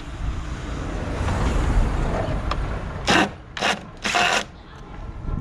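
Small cordless impact driver undoing the headlight's 8mm bolts: a rough run, then three short bursts in the second half.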